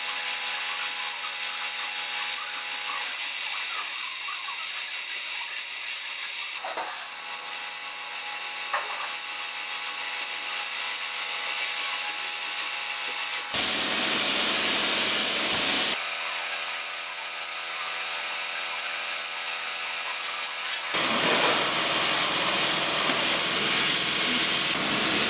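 Mini metal lathe with a brushless motor running with a steady whine and hiss. Twice, for about two seconds some 13 seconds in and again from about 21 seconds on, a louder scraping noise joins it as the tool cuts into the spinning workpiece to start a drilled hole.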